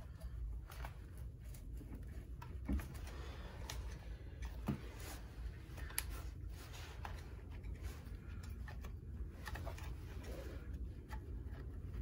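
Light clicks and scrapes of a steel pick and gloved fingers prying a small spring clip out of a Harley-Davidson flathead's ignition points housing, with a few sharper metal ticks, over a steady low hum.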